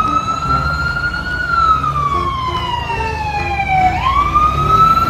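Fire engine siren wailing as the truck pulls out: the pitch rises and holds, slides slowly down for a couple of seconds, then climbs again about four seconds in, over a low rumble.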